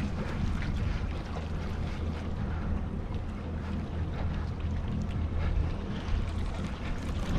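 Steady wind rumble on the microphone, with faint water washing against the jetty rocks underneath.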